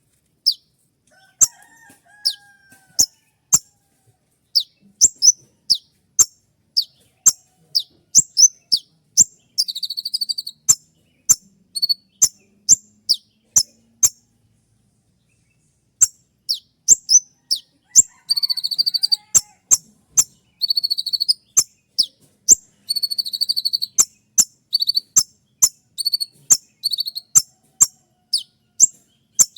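Kolibri ninja sunbird calling: a string of sharp, high, downward-slurred chip notes, about one to two a second, broken by short buzzy trills. The calls stop for about two seconds midway, then come back with more of the buzzy trills.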